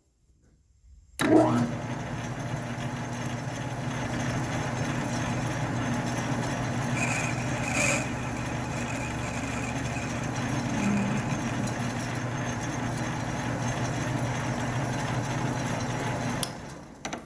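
A shop machine's electric motor switches on about a second in and runs steadily with a low hum, then winds down near the end, while brass is worked for the steady rest's finger ends.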